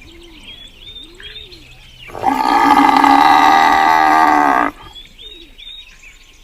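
A village cow mooing once, one long steady call lasting about two and a half seconds in the middle. Birds chirp faintly before and after it.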